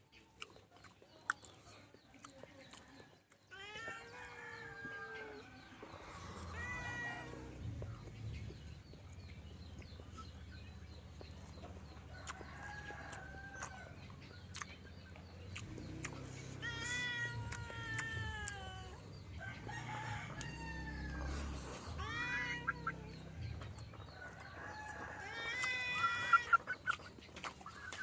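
An animal calling again and again: about seven drawn-out calls, each falling in pitch, with a low hum underneath from about six seconds in.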